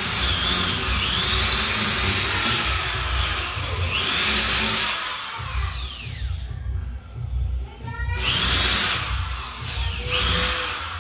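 Corded electric hand drill boring holes into a painted wall, its motor whining up and down in pitch as it speeds and slows. It drops away for a moment after about six seconds and starts again near eight.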